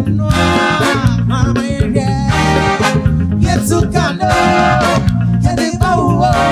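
A woman singing into a microphone over live band music with a steady bass line.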